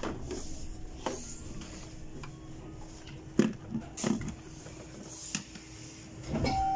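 Interior of a Bolloré Bluebus 12-metre battery-electric bus: a steady low hum with a few sharp knocks and rattles, and a brief higher tone just before the end.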